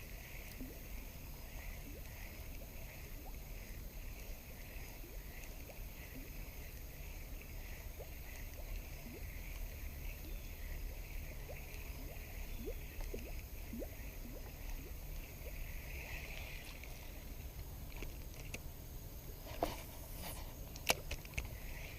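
Quiet riverside ambience: a low steady rush of moving river water under a continuous high insect chirring, with a few sharp clicks near the end.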